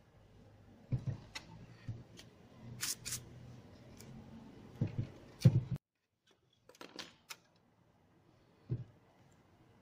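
Handling noise from a Bose 301 speaker cabinet with its woofer removed: irregular knocks, taps and rustles as it is handled by hand, loudest about five and a half seconds in. The sound cuts off abruptly just before six seconds, then come a few faint clicks and one last knock near the end.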